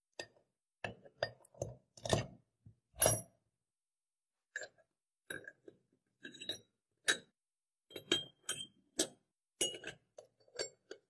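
Metal tools and small metal parts clinking and knocking by hand: a string of short separate strikes with uneven pauses between them. The loudest knocks come about two and three seconds in.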